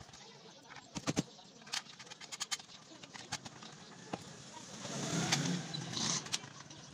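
Scattered light clicks and knocks as a clothes iron is reassembled: the plastic handle set against the chrome metal body and a screwdriver touching the parts. A rougher background noise swells for a couple of seconds around five seconds in.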